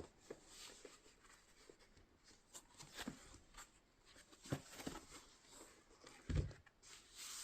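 Handling noises from a leather laptop case: soft rustles and light clicks and knocks, with a heavier low thump about six seconds in and a brief rustle near the end.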